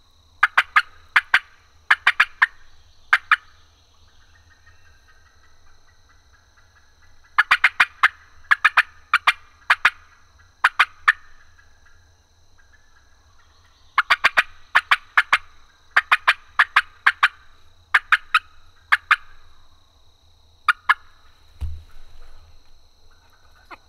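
Osceola wild turkey gobbling, loud: short bursts of sharp, rapid notes repeated in three runs with pauses of a few seconds between them. A single low thump comes near the end.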